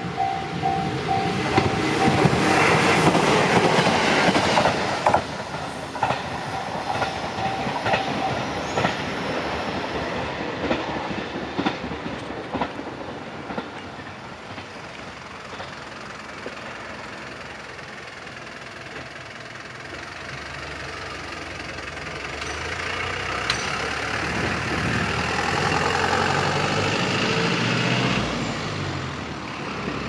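A level-crossing warning bell ringing in quick pulses stops about a second in. An electric train's wheels then clatter over the rail joints, loud at first and fading over about ten seconds. Later a truck's engine runs louder as it drives across the tracks, rising and falling through the gears.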